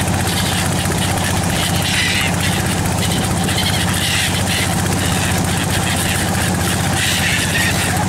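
An engine running steadily with a low, fast throb, with gulls calling on and off above it.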